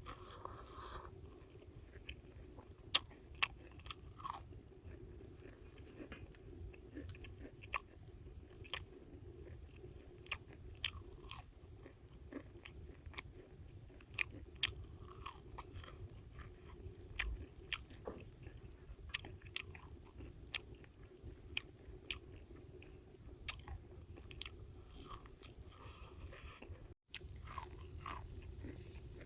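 Crispy fried egg-battered mushrooms being bitten and chewed close to the microphone: many irregular sharp crunches over steady chewing.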